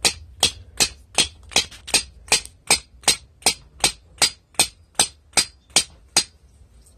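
Hammer blows driving a 3/8-inch earth rod into the ground: steady, evenly spaced strikes about two and a half a second, stopping about six seconds in.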